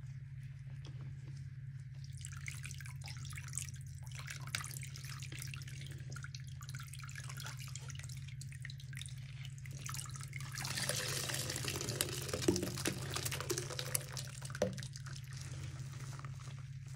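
Wet kitchen sponges caked with scouring powder being squeezed in a sink of soapy cleaning solution: squelching and crackling, with liquid dripping and streaming out. It grows louder and fuller about ten seconds in, as the sponges are wrung hard and the liquid pours out.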